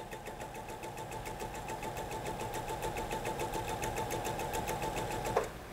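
Pfaff electric sewing machine running steadily, the needle stitching in a fast, even rhythm, then stopping with a click near the end.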